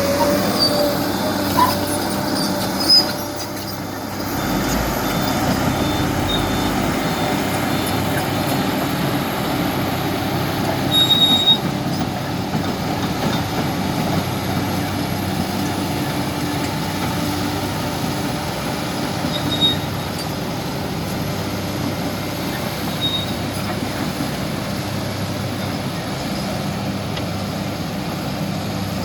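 Kobelco excavator's diesel engine running steadily, with a few short high squeaks and knocks from the machine as it works, around 3, 11 and 20 seconds in.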